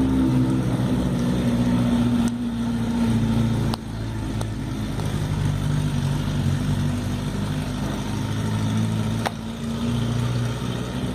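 Motor vehicle engine idling steadily, a low even hum, with a couple of faint clicks.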